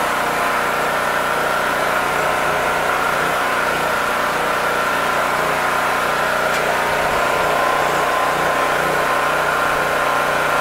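An engine running steadily at an even pitch over a steady hiss of heavy rain and wind.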